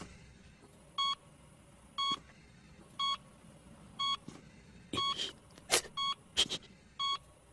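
Hospital heart monitor beeping steadily, one short electronic beep about every second, each beep marking a heartbeat. About five seconds in, a soft breathy voice whispers the name Izumi.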